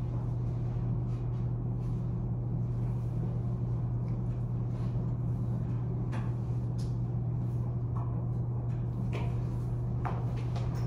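Steady low electrical hum, with a few faint short scratchy strokes of a marker drawing on a board.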